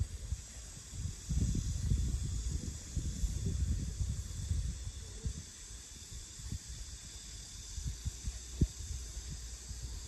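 Outdoor wind buffeting the microphone in gusts, heaviest from about one to four seconds in, over a steady high-pitched hiss of insects trilling. A single sharp thump near the end.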